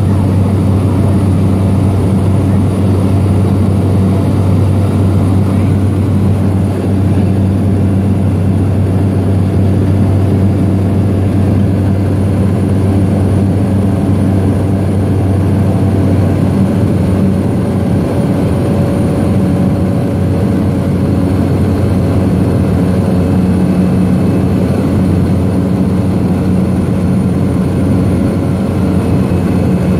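Single-engine propeller floatplane in cruise: a loud, steady drone of engine and propeller with a constant low hum.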